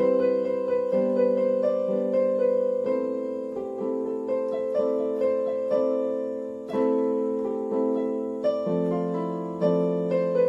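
Background instrumental music: a slow melody on a piano-like keyboard, with a new note struck about once a second and each note fading as it rings.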